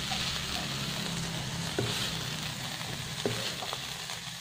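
Diced pineapple, carrot and green beans sizzling steadily in a hot wok over high heat, with a couple of light knocks of a wooden spatula as the vegetables are scooped out.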